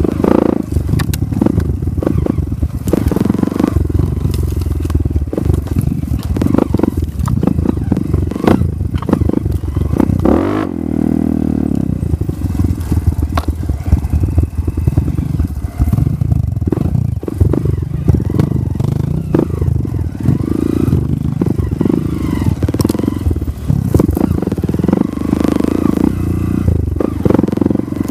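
Dirt bike engine running as it is ridden over a rough trail, the throttle opening and closing, with frequent rattles and knocks from the bike over bumps. Around the middle the engine note drops and climbs back.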